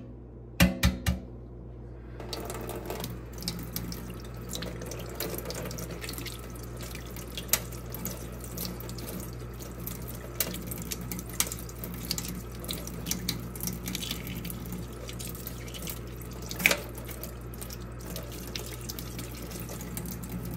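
A hard-cooked egg tapped sharply against the edge of a stainless steel sink three times to crack the shell. From about two seconds in, tap water runs steadily into the sink as the shell is peeled off under it, with scattered small clicks.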